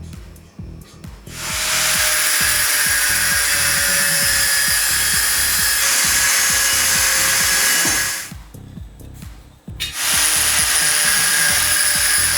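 A power tool running in two long steady bursts, a harsh hiss with a faint whine, the second starting about ten seconds in, over background music with a steady beat.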